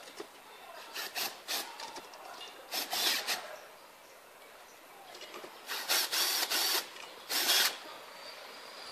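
Cordless drill driving screws into a shower tray's support frame in several short bursts, each with a rasping sound as the screw bites in. The longest burst, about a second, comes about two-thirds of the way through.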